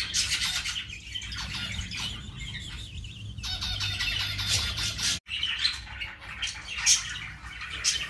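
Small cage birds chirping and squawking, many quick high calls overlapping. The sound cuts out for an instant about five seconds in.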